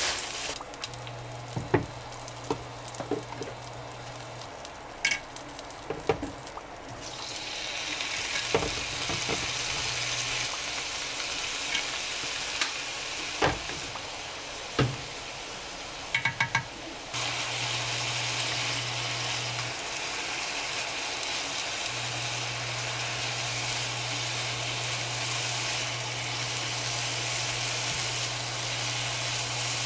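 Food frying in a pan: a sizzle that swells about a quarter of the way in, with scattered taps and scrapes of a utensil stirring it. A low hum comes and goes several times.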